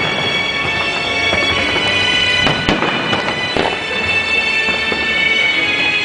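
Music with long held tones plays on while firework shells burst overhead, with a couple of sharp bangs a little before and after the middle.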